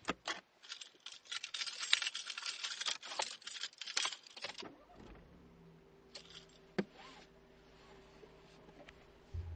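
Dense, rapid rattling and clicking of small hard objects for about four and a half seconds, then a quiet low steady hum with a single sharp click.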